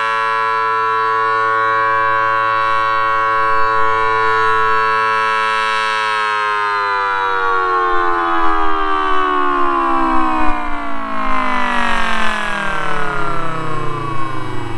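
Miniature model Thunderbolt siren with a two-tone 4-5 rotor, supercharged by an air mattress blower, sounding a steady chord as its horn rotates. About six seconds in it starts winding down, the pitch falling steadily and the sound turning into a low, choppy rumble near the end.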